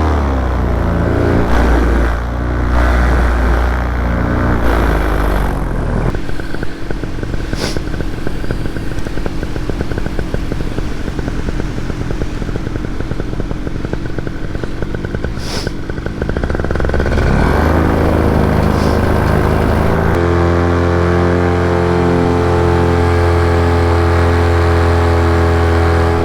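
Paramotor engine and propeller in flight: throttle eased back over the first few seconds, running at low revs with a fast pulsing beat through the middle, then opened up again about two-thirds of the way through and held steady at high power.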